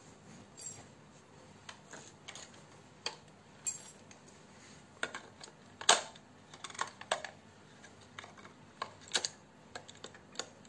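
Scattered small plastic clicks and taps from a toy RC car's handheld remote being handled and its battery compartment opened, the sharpest click about six seconds in.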